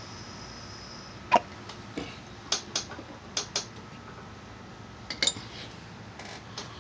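Light metallic clicks and taps from small metal pieces being handled. There are about ten sharp ticks, several in quick pairs, and the loudest, about a second in, has a brief ring.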